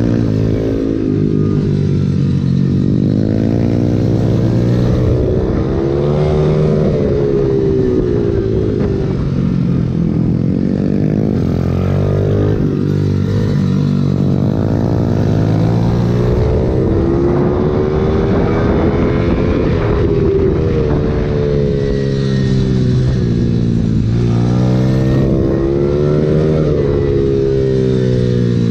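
Pit bike engine at full racing effort, heard from the handlebars: it revs up hard through the gears on the straights and falls away into each corner, several times over, with wind rushing past.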